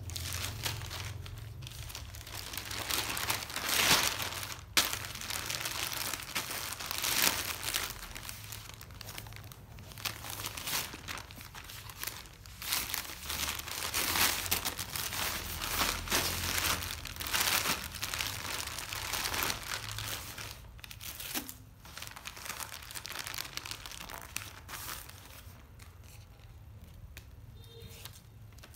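Plastic bags crinkling and rustling in irregular bursts as clothing is pushed into a clear plastic bag and then into a plastic mailer bag; the handling quietens near the end.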